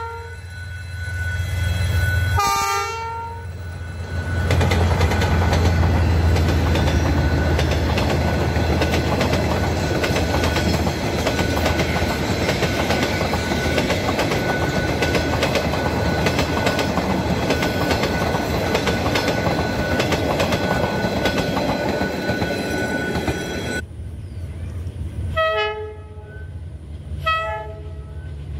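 Diesel passenger train: the locomotive's horn sounds one blast about two seconds in. Then the locomotive and a long string of coaches pass close by, a steady engine drone under loud, rushing wheel-on-rail noise. Near the end another approaching diesel locomotive gives three short horn toots.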